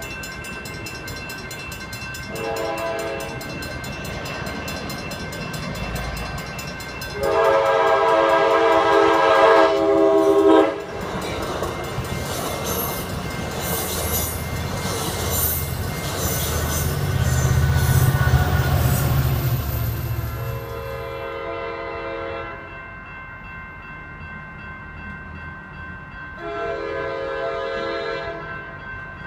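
Passenger train's multi-chime air horn blowing several blasts, the longest and loudest about seven seconds in, followed by the train rushing past with a low rumble and hiss of wheels on rail. Near the end, another horn blast from a train further off.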